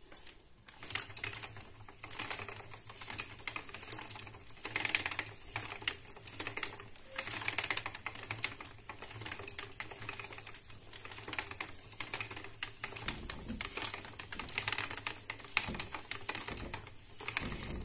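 Antique wooden spinning wheel running while plying two strands of wool. The treadle, wheel and flyer make a fast, steady clicking clatter over a low hum, starting about a second in.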